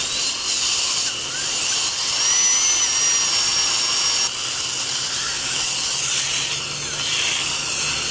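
Dental drill whining, its thin high pitch gliding up and down, over the steady hiss of surgical suction.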